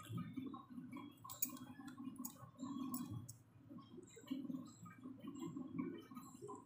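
Lemon pieces squeezed by hand over a steel bowl of water: faint squishing and juice dripping into the water, with a few sharp little clicks.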